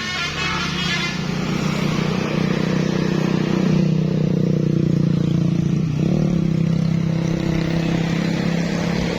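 A bus engine running steadily as the bus passes, growing louder over the first few seconds, with a brief dip in pitch about six seconds in before it picks up again.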